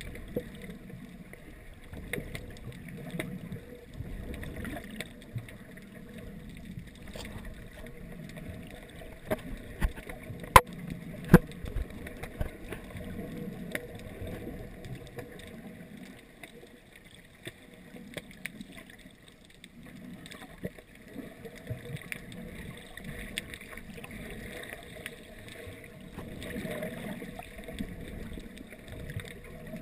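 Muffled underwater sound heard through a GoPro dive housing: a low wash of water rising and falling in slow swells, with scattered faint clicks. Two sharp knocks close together about ten seconds in are the loudest sounds.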